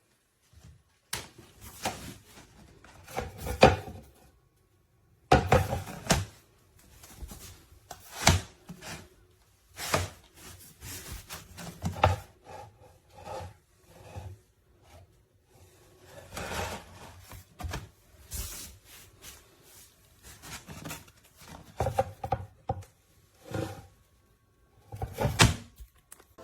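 Wooden pull-out cabinet drawers and their contents being handled: an irregular series of wooden knocks, thuds and scrapes, the loudest a few seconds in.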